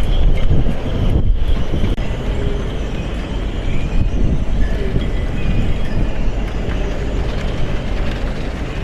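Strong gusting wind buffeting the microphone: a loud, uneven low rumble, with faint high whistling above it.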